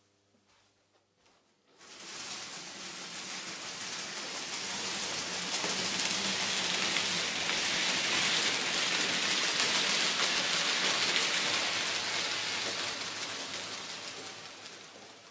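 N-scale model freight train rolling past close by: a steady rattling hiss of wheels on track that starts suddenly about two seconds in, swells to its loudest midway and fades away near the end.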